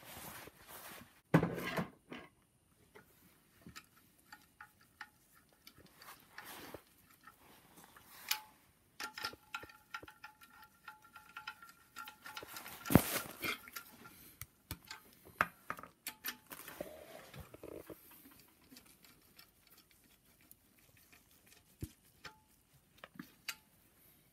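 Hand tools working bolts into the aluminium timing-chain casing of a BMW N54 engine: scattered small metallic clicks and clinks of a ratchet and bolts, with one sharper metal knock about halfway through.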